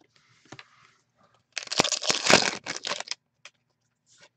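Hockey trading cards being handled and shuffled between the fingers, a loud crinkly rustle about a second and a half in that lasts over a second, with a fainter rustle at the start.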